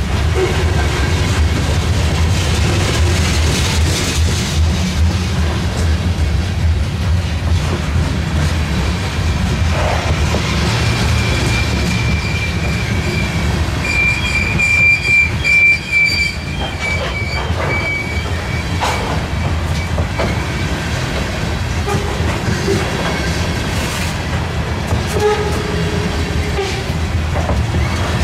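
Freight train passing, its wheels rumbling steadily on the rails, with a high steady wheel squeal for several seconds in the middle.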